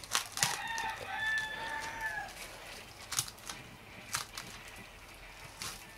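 A rooster crows once in the background: a single call of about two seconds that drops off at the end. Plastic cling film crinkles and crackles as it is stretched over a drinking glass, with a few sharp crackles later on.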